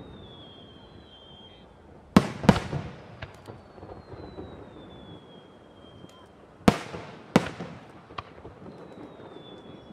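Aerial firework shells bursting over a steady background of distant rumble: two sharp bangs about two seconds in and two more about seven seconds in, each trailing off in echoes, with smaller pops between. Long whistles falling slowly in pitch sound behind them.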